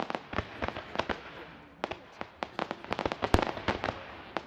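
Aerial fireworks going off in rapid, irregular sharp cracks and pops. There is a brief lull a little before the middle, then a denser run of cracks after about three seconds.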